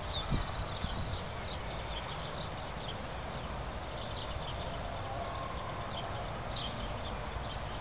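Outdoor ambience: a steady rushing hiss with a low rumble, and scattered short, high bird chirps throughout. There are a few low thumps in the first second.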